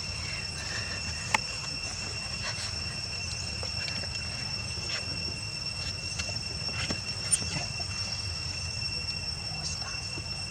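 Steady high-pitched insect drone, with a low rumble beneath and a few scattered clicks, the sharpest about a second and a half in and another about seven seconds in.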